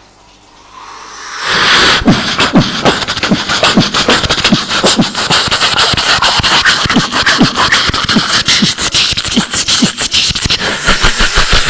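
Human beatboxing into a handheld microphone: a quick, steady beat of sharp clicks and hisses over repeated low, falling kick booms. It starts suddenly about a second and a half in, after a quiet opening.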